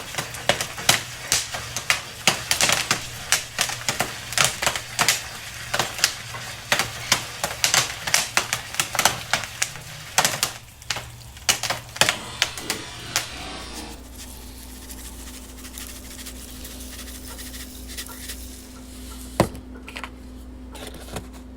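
Popcorn popping: rapid, irregular sharp pops, dense at first and thinning out. They stop about 13 seconds in, leaving a steady low hum with a single pop near the end.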